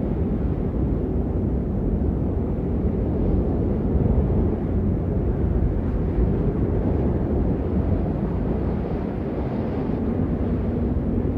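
Wind blowing, a steady deep rushing noise with no gusts or breaks.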